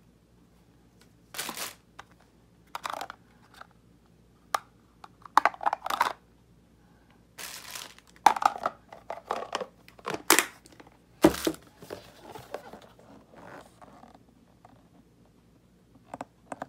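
Plastic packaging and a plastic picnic box being handled: irregular crinkling and rustling of plastic wrap, with light clicks and knocks from the box's plastic parts. One sharper knock comes about eleven seconds in.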